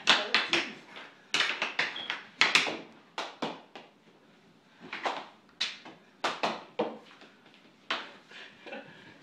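Floor hockey sticks clacking against a tile floor and the ball in a knee-hockey scramble: irregular clusters of sharp knocks with short quiet gaps between them.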